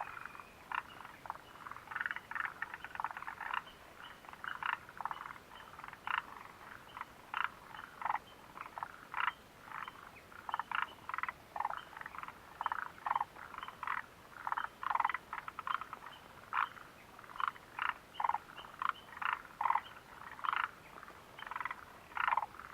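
A chorus of frogs calling: many short calls, two or three a second, overlapping one another.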